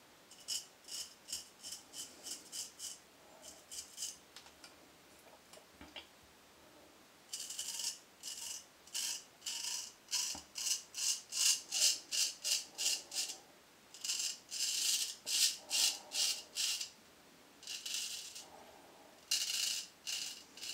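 Dovo Black Star 5/8 straight razor scraping stubble through shaving lather on the neck and chin, in runs of quick short strokes, about three a second, with pauses between runs.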